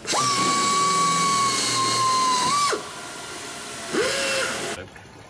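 Pneumatic air tool run twice. First comes a steady high whine with air hiss for almost three seconds, winding down at the end. Then a shorter, lower-pitched burst comes about four seconds in.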